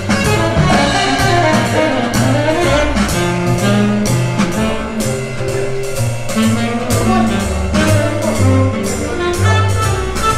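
Music with brass and a steady beat, played through Martin Logan Neolith electrostatic loudspeakers.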